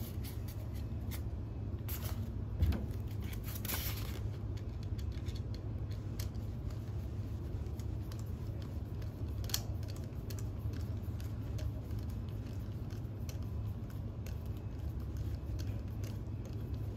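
Phillips screwdriver turning out the screws that hold a glycol pump's bracket to its motor: faint metal clicks and scraping, with a short rasp about four seconds in and a sharper click near ten seconds, over a steady low hum.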